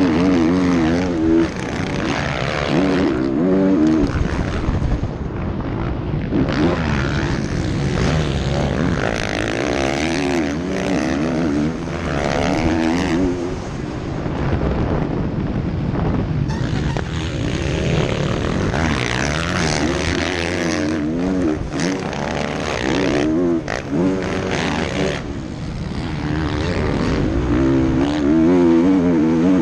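Motocross bike engine revving up and falling back again and again as it is ridden hard around a dirt track, heard close from a helmet camera.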